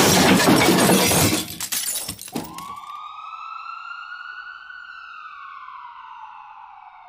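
A loud crash with breaking and shattering noise that clatters away over about two seconds, then a siren wailing: one quick rise in pitch followed by a slow fall.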